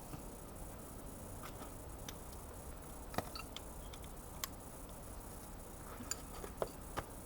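Scattered light metallic clicks and taps, about ten of them at irregular intervals, from wrenches being worked on a motorcycle's swingarm pivot bolt.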